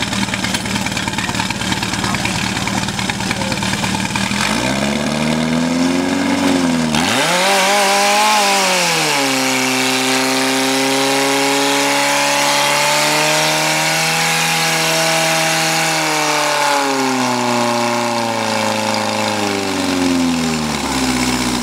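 Portable fire pump's small petrol engine idling, then revved hard about four and a half seconds in. It dips once and climbs to a high, steady whine that holds under full load while it drives water through the hoses, then its pitch falls back toward idle near the end.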